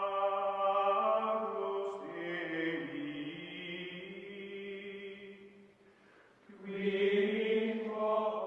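Outro music: a slow chant of long held vocal tones. One sustained chord fades out near six seconds, and a second one begins shortly after.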